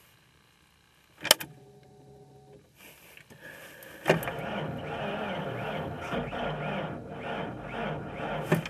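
A sharp click, then a faint steady hum for about a second. From about four seconds in, the 1993 Ford Ranger's starter cranks the engine steadily and rhythmically, and the engine does not catch in the deep cold.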